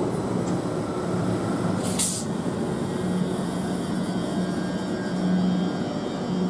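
Class 387 electric multiple unit standing at the platform, its onboard equipment humming steadily, with one short hiss of released air from its pneumatic brake system about two seconds in.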